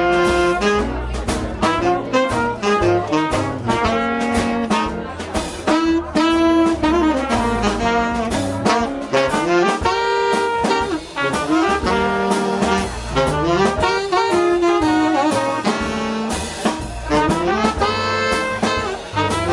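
Live hard-bop jazz quintet playing: trumpet and tenor saxophone blowing together over piano, double bass and drums, with cymbal and drum hits throughout.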